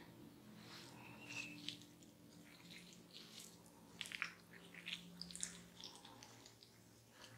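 Faint, scattered wet squishes and light smacks of hands massaging blended fruit pulp over bare skin, heard over a low steady hum.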